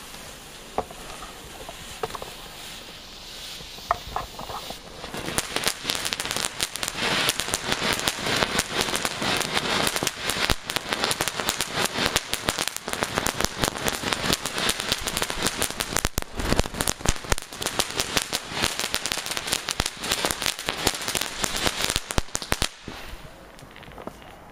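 Ground firework fountain burning and spraying sparks. A few scattered pops at first, then dense, continuous crackling from about five seconds in, which stops suddenly near the end.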